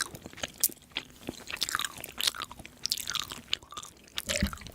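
A person chewing and eating close to the microphone: irregular wet clicks, smacks and crunches.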